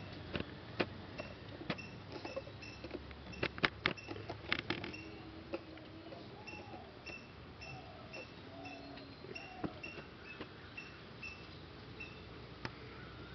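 A high, even chirp repeats about twice a second, with scattered sharp clicks and a quick run of clicks and taps about four to five seconds in.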